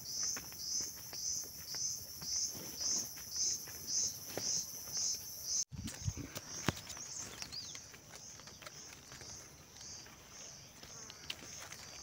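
Insects calling in a high trill that pulses about twice a second, over soft footsteps on a dirt trail; about six seconds in, the trill changes to a steady high drone.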